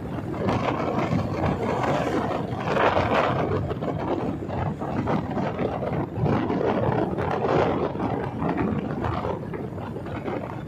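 Wind rushing over the microphone of a moving motorcycle, mixed with the bike's running and road noise; the rush swells and dips unevenly.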